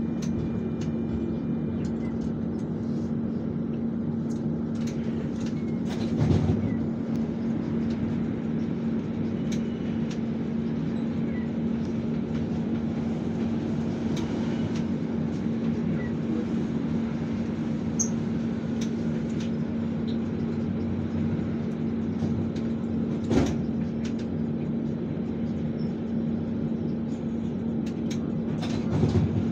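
Inside the passenger cabin of an Alsthom TFS tram running along its track: a steady rumble with a constant hum. A few short knocks come through, about six seconds in, about twenty-three seconds in and near the end.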